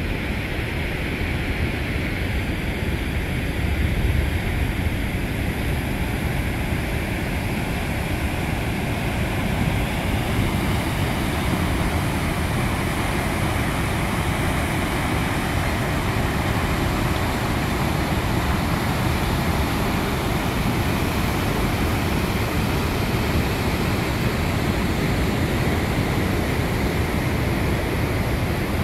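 Steady rushing of the Niagara River rapids, an even noise heaviest in the low range.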